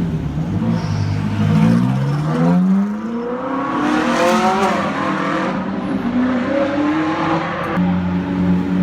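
GT3 race car engine revving up under acceleration, its pitch climbing for about three and a half seconds before it backs off. A steady low engine note near the end.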